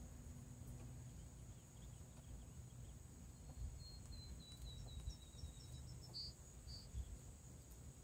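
Faint outdoor ambience: a steady high-pitched insect drone, with a low rumble underneath. In the middle a bird gives a quick run of about a dozen short notes that fall slightly in pitch, then two louder notes.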